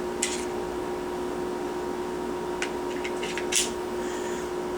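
Short clicks and knocks of a Glock pistol and its magazines being handled: one just after the start, a few close together past the middle and a sharper one about three and a half seconds in, over a steady electrical hum.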